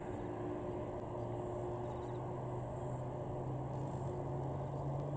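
Boeing 747-400F's four Pratt & Whitney PW4062 turbofans running at taxi power, heard from a distance as a steady low rumble with a hum that slowly rises in pitch.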